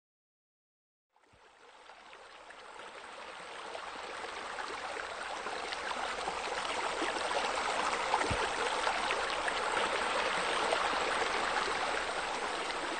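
Running, splashing water that fades in about a second in and grows steadily louder.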